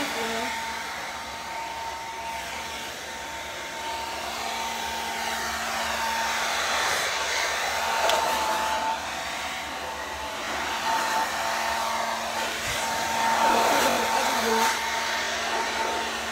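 Handheld hair dryer running steadily: a rush of air with a steady motor whine. It is blowing into football pads to dry them, and its level swells and dips a little as it is moved.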